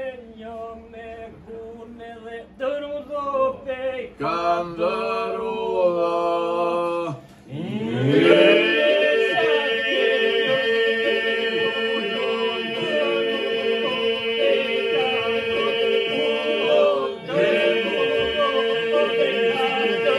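Men singing southern Albanian polyphony a cappella. A solo voice opens with gliding, ornamented phrases; about eight seconds in the rest of the group joins on a steady held drone (the iso) under the solo lines. The drone breaks briefly for a breath about seventeen seconds in, then resumes.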